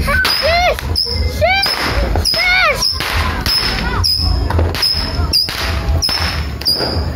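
Saturn missile battery firing: a rapid string of small rockets launching with sharp pops, about two a second. Several whistle briefly, rising then falling in pitch, in the first three seconds.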